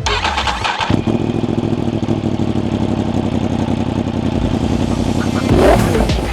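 Yamaha R1's 998cc crossplane inline-four engine running at a steady note from about a second in. Near the end its pitch swings, at the loudest moment.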